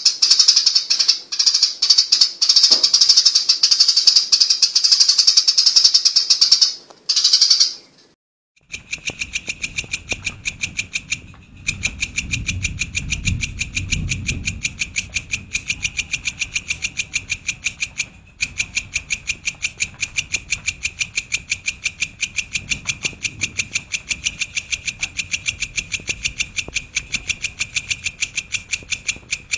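Songbird song of the kind used to train caged birds: a dense, rapid, high-pitched song that breaks off about seven seconds in, then a fast, very even chain of sharp repeated notes, about five a second.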